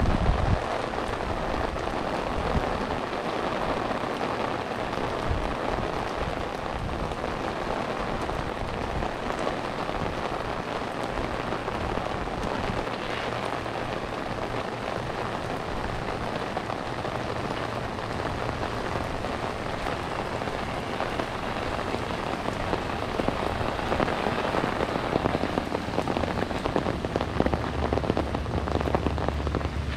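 Steady rain falling, with a dense patter of drops striking hard surfaces. A low hum joins in near the end.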